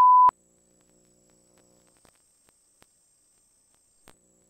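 A steady, high-pitched test-tone beep of the kind that goes with TV colour bars, lasting about a third of a second and cutting off sharply. Then near silence with a faint electrical hum and a few soft clicks.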